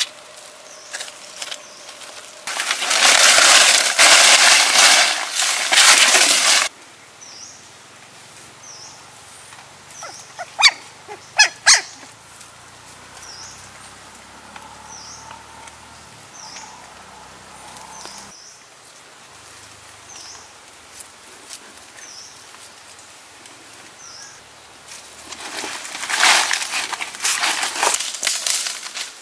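Loud rustling of dry leaves for about four seconds, a few sharp clicks, then a faint short high chirp repeating about every second and a half. Near the end, footsteps crunch through dry leaf litter.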